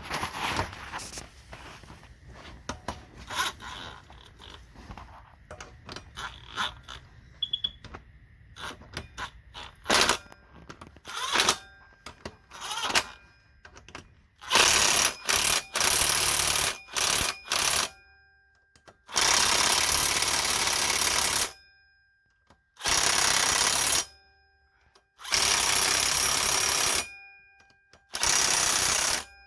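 Aerosol brake cleaner sprayed in a series of loud hissing bursts, each about half a second to two seconds long, through the second half. Before them come scattered clicks and knocks of parts and tools being handled.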